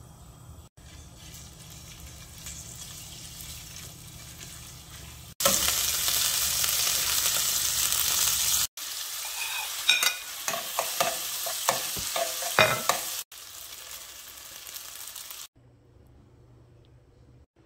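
Oil sizzling in a nonstick frying pan as garlic, then pork and an egg, fry, in several cut segments; the sizzle is loudest for a few seconds in the middle. It is followed by a utensil clicking and scraping against the pan while stirring, and near the end it drops to a faint low hum.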